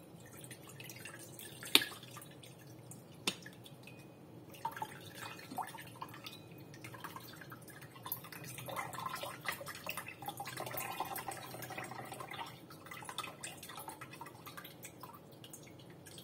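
Coconut water dripping and trickling from a cracked coconut into a bowl, in irregular drips. Two sharp taps, the loudest sounds, come about two seconds in and again a second and a half later.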